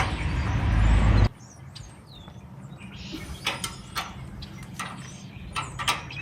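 A loud steady rumble that cuts off suddenly just over a second in, followed by scattered sharp metallic clicks and knocks of hand tools working on a combine's chain and its adjusters.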